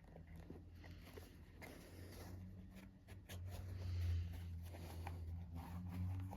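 Short scraping and clicking handling sounds over a steady low hum, which gets louder about three seconds in.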